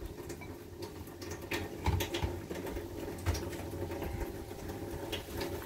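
Kitchen sounds during cooking: a steady low hum with scattered light clicks and taps of utensils and cookware.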